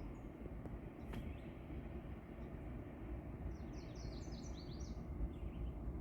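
A songbird gives a quick burst of high chirping notes about three and a half seconds in, over a steady low rumble of outdoor background noise.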